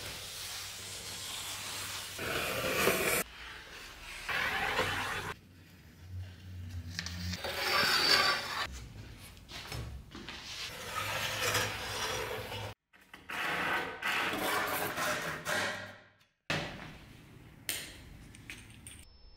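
Hand tools scraping and cutting into pine boards: a series of rasping strokes on wood, broken twice by sudden short silences.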